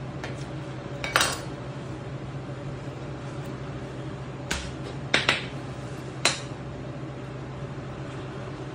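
A knife and pieces of swordfish loin being handled on a plastic cutting board, giving a few sharp knocks and clinks: one about a second in, a quick pair about five seconds in and another just after. A steady low hum runs underneath.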